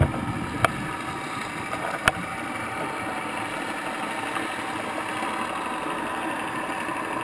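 A steady mechanical hum heard underwater, with two short sharp clicks, one under a second in and one about two seconds in.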